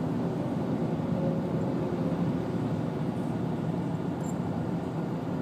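Steady road noise inside a car's cabin while driving along a highway, a constant low rumble of tyres and engine.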